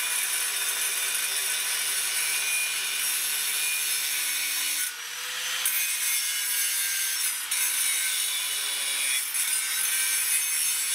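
Corded angle grinder running with its disc against the end of a steel exhaust pipe, grinding it down to trim and smooth it for fitting. A steady motor whine under a loud grinding hiss, which eases briefly about five seconds in as the load changes, then picks up again.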